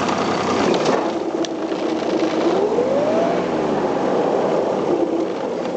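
Kubota GF1800 diesel mower running steadily, with a whining tone that rises in pitch about two and a half seconds in and sinks back a second or so later.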